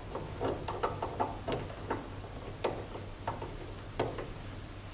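Irregular small clicks and taps of a cable connector being handled and fastened into a socket on the machine, about a dozen in all, with a sharper click near the end.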